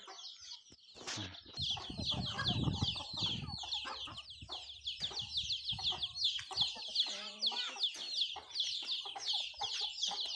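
Free-range chickens clucking, with a dense run of rapid high chirps starting about a second and a half in and going on to the end.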